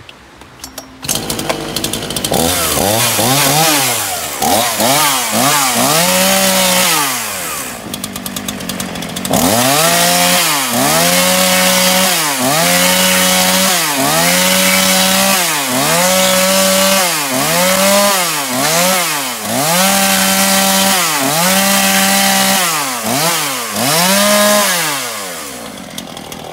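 Zenoah G3500EZ 35.3 cc two-stroke chainsaw pull-started, catching about a second in. It is then revved up and down again and again, about every second and a half, rising to a held high pitch and falling back each time, and settles back down near the end.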